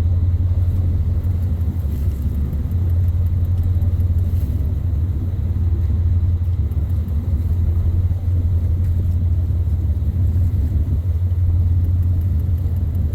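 Whale-watching boat's engine running, a steady low drone that does not change.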